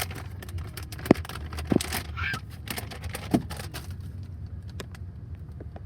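Scattered clicks and taps of small toys and packaging being handled, with a brief squeak about two seconds in and a low steady rumble underneath.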